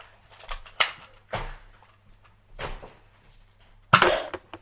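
Nerf blaster being fired: four sharp pops and thuds of foam darts leaving the blaster and striking, about a second apart, the last the loudest.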